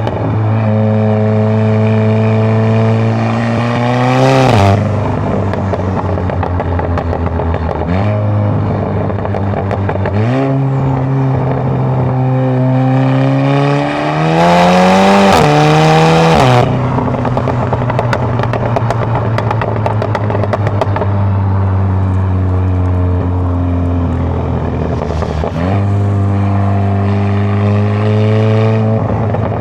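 Volkswagen MK7 GTI's turbocharged four-cylinder engine, breathing through a large 4.5-inch aftermarket downpipe, idling and being revved several times, each rev rising and dropping back to idle; the longest and loudest rev comes about halfway.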